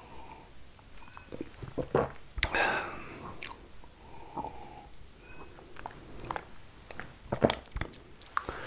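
Close-miked ASMR mouth sounds: irregular wet clicks, tongue pops and lip smacks, with a brief breathy burst about two and a half seconds in.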